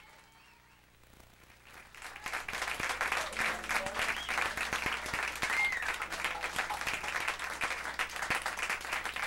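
Small club audience applauding, fading in after a second or two of near silence, with a voice or two heard over the clapping.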